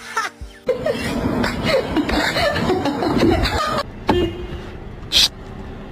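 People laughing over background music, the laughter loudest for about three seconds and then dying down, with a sharp click near the end.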